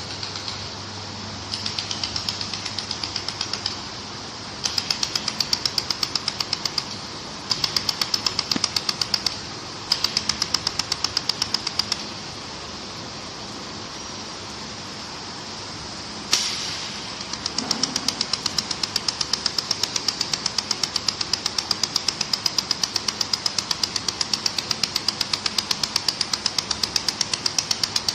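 Pulsed YAG laser welder firing on stainless steel: a rapid, even train of sharp snaps, about four a second, coming in several runs with pauses between, over a steady background hum. A single louder crack about 16 seconds in starts the last long run.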